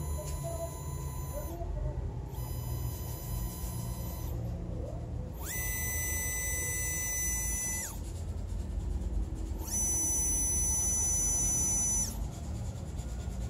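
Oriental Motor (Vexta) ASM66AA-H50 closed-loop stepper motor with 50:1 harmonic gearing, under its ASD24C-A driver, whining in four short runs of about two seconds each with short pauses between. In each run the high whine sweeps up in pitch as the motor accelerates and down as it decelerates. The third run is the loudest.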